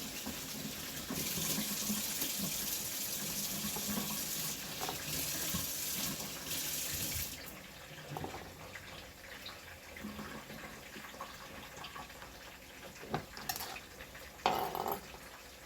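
Kitchen tap running into a sink with a steady rush of water, shut off abruptly about seven seconds in. A few light clicks and knocks follow, the loudest near the end.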